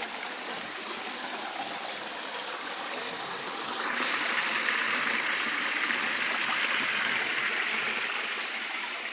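Stream water rushing and gurgling over rocks, a steady noise that swells louder about four seconds in and eases off again near the end.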